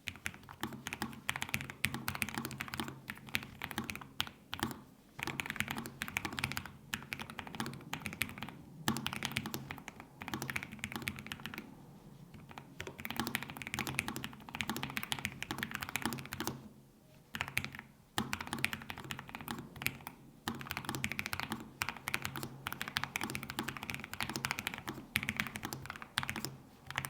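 Lofree Flow low-profile mechanical keyboard with Kailh POM switches being typed on fast, a dense clatter of keystrokes in runs broken by short pauses every few seconds. A low steady hum sits underneath.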